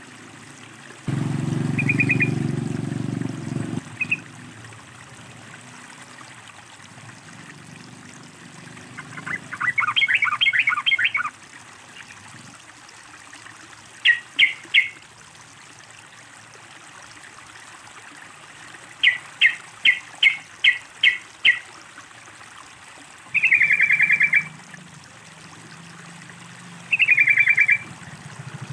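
Yellow-vented bulbul (trucukan) calling in short bursts of bright chirps: quick rattling trills, a run of about seven quick notes, and a few longer bubbling phrases near the end. Water trickles underneath, loudest for a few seconds near the start.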